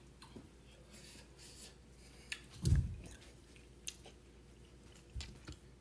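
Quiet room with a few soft clicks and taps from someone moving about, and one dull thump a little before the middle.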